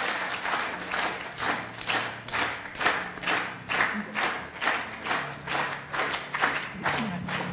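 Audience clapping in time, a steady beat of about two to three claps a second, with a low steady hum underneath.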